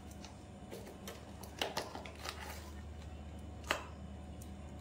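A few light clicks and taps from handling a spoon and spice container while spooning out powdered spice, the sharpest near the end, over a steady low hum.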